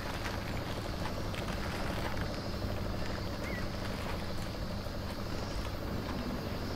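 Steady low background rumble and hum, with faint crinkles of paper burger wrappers being handled.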